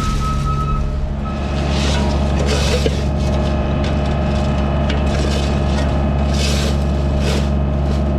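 Tractor engine running steadily under load to power a corn sheller, with short bursts of rattling noise on top.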